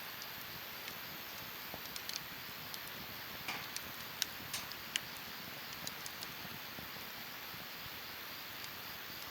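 Wood fire crackling: a steady soft hiss with irregular sharp pops and snaps, a cluster of them in the middle.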